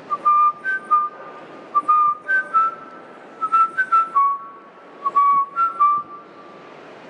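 A person whistling a tune: a string of clear held notes stepping up and down in pitch, with a few short clicks between them.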